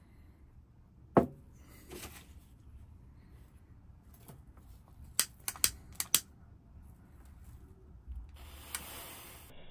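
Butane utility lighter: a quick run of four or five sharp trigger clicks, then a steady hiss of its flame near the end. Before that, a sharp knock about a second in and a softer one, from the jar and the lighter being handled.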